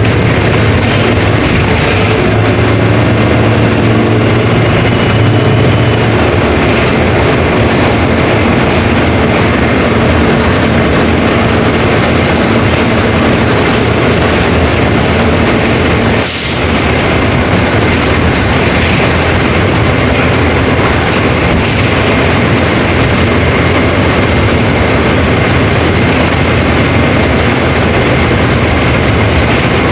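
Mercedes-Benz OF 1721 Bluetec 5 bus running under way: a loud, steady rumble of engine, tyres and body. An engine drone holds steady for about the first six seconds, then fades under the rolling noise, which dips briefly about halfway.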